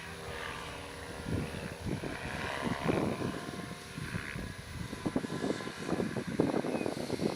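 Small FPV racing quadcopter motors and propellers buzzing in short, uneven bursts.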